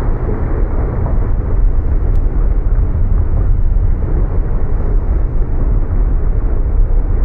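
Volcanic eruption sound effect: a loud, continuous deep rumble, heaviest in the low bass, steady without distinct blasts.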